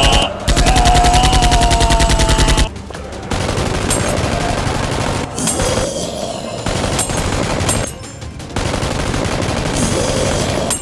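Bursts of rapid automatic gunfire. A dense, even run of about a dozen shots a second cuts off sharply about two and a half seconds in, followed by rougher, less even gunfire.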